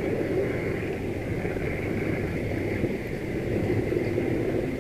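H0-scale model locomotive running along the track, heard from the camera riding on it: a steady rumble and rattle of its motor and wheels on the rails.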